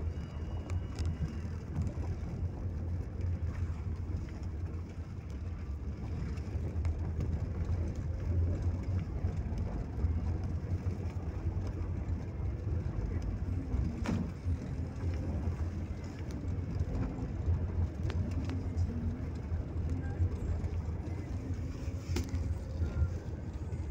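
A moving road vehicle heard from inside the cabin: a steady low engine and road rumble, with a few sharp clicks or rattles from the bodywork.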